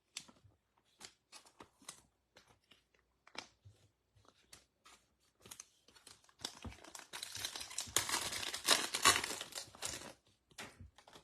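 Light scattered clicks and taps of trading cards being handled. About six seconds in, a few seconds of dense crinkling and tearing as a foil trading-card pack wrapper is ripped open and crumpled.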